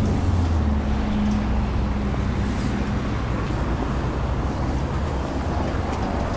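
2017 Škoda Octavia's 1.6 MPI four-cylinder petrol engine idling steadily, heard from behind the car as a low, even hum; the hum weakens about halfway through.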